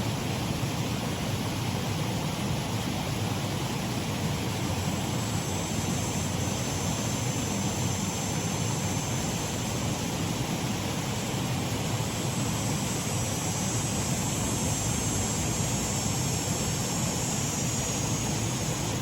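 Shallow waterfall on a mill race stream, with water running steadily over it and a deep, even rush. A faint high hiss joins about five seconds in and fades just before the end.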